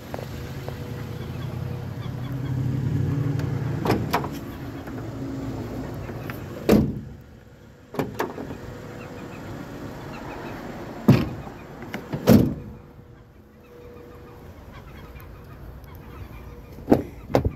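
A vehicle's low rumble for the first few seconds, fading out, then scattered sharp knocks and clicks. Two close together near the end come as the pickup's rear door is opened.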